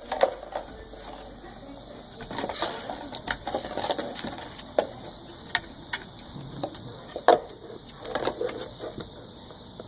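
A puppy dashing about: irregular clicks, scuffs and thumps of paws and claws on the floor, with a couple of louder knocks near the start and about seven seconds in.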